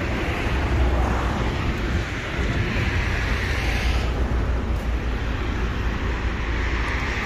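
Highway traffic passing close by: a steady low rumble with the rush of vehicles swelling and fading, one pass building about three seconds in.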